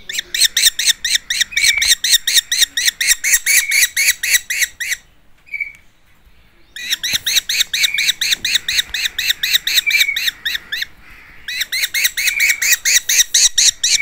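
Common kestrel nestlings calling in fast runs of repeated high notes, several a second. The calling breaks off for a couple of seconds near the middle, with one lone call in the gap, then resumes.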